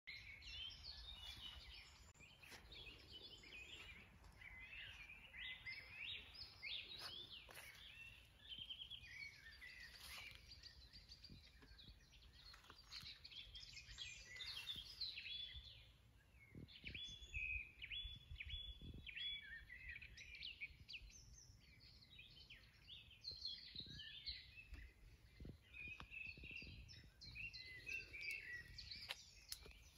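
Faint outdoor birdsong: several small birds chirping and trilling continuously, over a low rumble.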